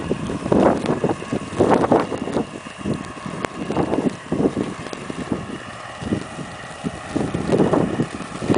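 Blizzard wind gusting against the microphone in irregular rushes, over a faint steady mechanical hum.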